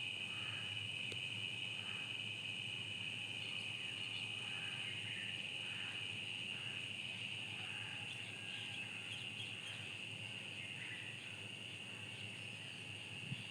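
Steady, shrill insect chorus, a continuous high trill, with faint short chirps repeating about once a second underneath.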